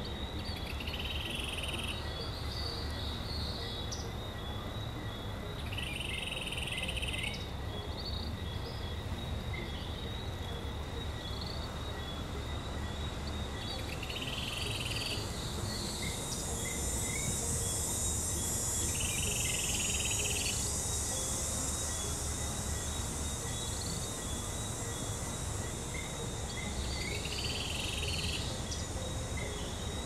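Rainforest ambience: a steady chorus of insects with high continuous tones over a low rush of water. A short animal call repeats five times, every five to eight seconds, and a high insect buzz swells and fades about halfway through.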